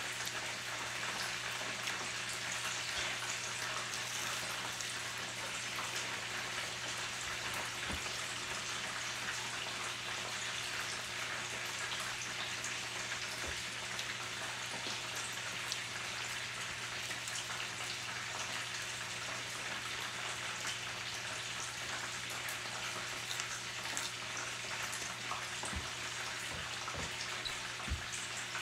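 Hot oil frying: a steady sizzle with fine scattered crackles.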